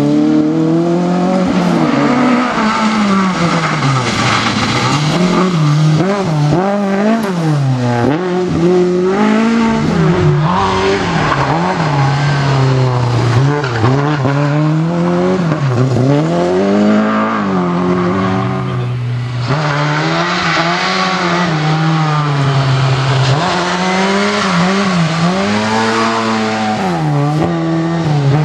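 Rally car engine revving hard and lifting off over and over, its pitch climbing and dropping through gear changes and corners.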